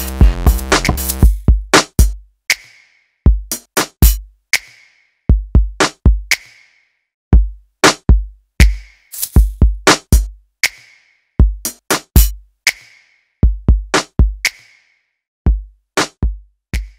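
Background electronic music with a drum-machine beat: the full backing drops out about a second and a half in, leaving only a pattern of deep kick drums and sharper snare-like hits.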